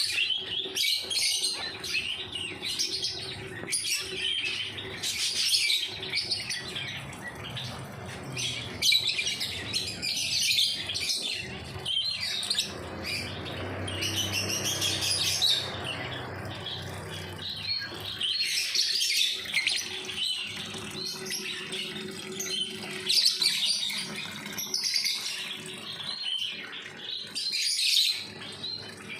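Many small pet birds chirping and twittering continuously, their short calls overlapping.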